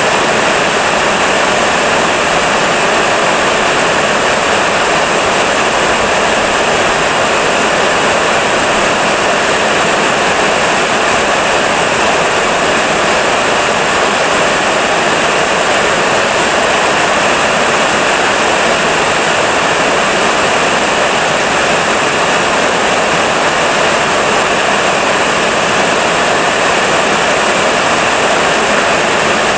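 Heavy rain falling steadily, a loud even hiss that does not let up.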